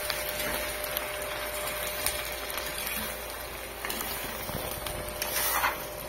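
Chile cuaresmeño strips, onion and diced tomato cooking in a pan over a gas flame, giving a steady sizzling hiss as the tomato juices bubble, with a few light clicks and scrapes of a stirring spoon.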